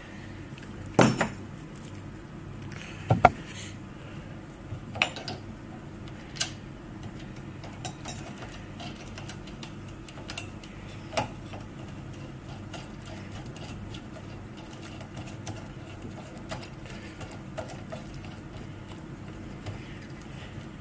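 Metal parts of an electric scooter's rear brake clicking and clinking as they are handled and fitted by hand. There are two sharp knocks about one and three seconds in, then scattered lighter clicks over a steady low hum.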